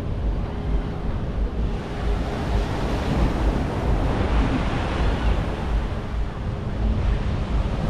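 Sea surf washing on the beach, with wind buffeting the microphone as a gusty low rumble. A wave swells up about three seconds in and dies away a couple of seconds later.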